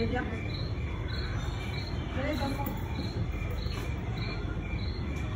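Crickets chirping in an even rhythm, about three chirps every two seconds, over a steady low background hum.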